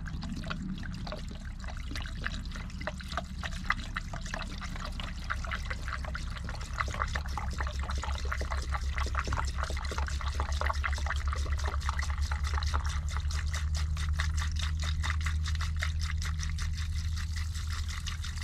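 Castrol Super Clean degreaser poured from a gallon jug into a funnel, glugging rapidly and evenly as it runs, a little louder from about seven seconds in. The degreaser is being run into the tractor's clutch housing to flush out leaked oil that is making the clutch slip.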